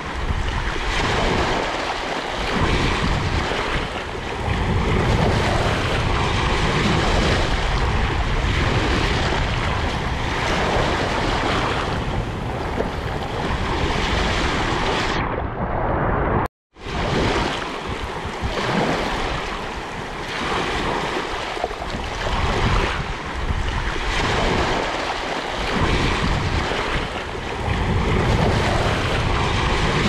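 Small waves breaking and washing up a sandy shore, the surf rising and easing in surges every few seconds, with wind rumbling on the microphone. The sound drops out for a split second about halfway through.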